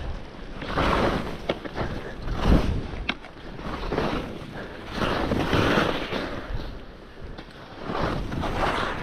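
Skis swishing through snow in a run of turns, each turn a swell of hissing noise, with wind on the microphone and a few sharp clicks.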